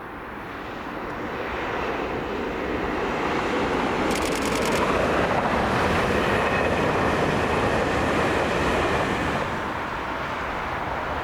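A train passing by. The rumble swells over about two seconds, holds loud, then eases off near the end.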